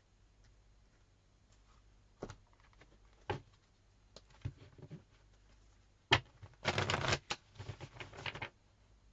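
Tarot cards being handled: a few separate taps and flicks, then a sharp snap and a quick burst of card shuffling about seven seconds in that trails off near the end.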